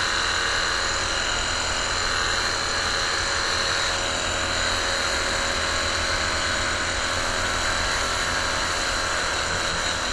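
Cordless electric pressure washer's motor and pump running steadily under load, a constant high whine over the hiss of the water jet.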